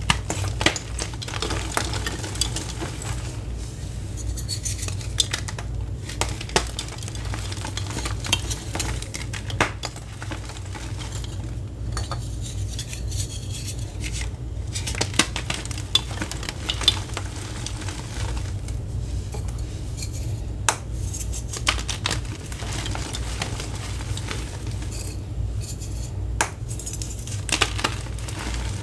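Homemade reformed gym chalk pieces (gym chalk, cornstarch, acetone and citric acid) crushed and crumbled in both hands: irregular crisp snaps and cracks over a dry crunching as the pieces break down to powder.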